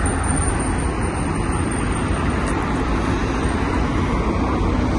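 Steady road traffic noise, a low rumble with no distinct events.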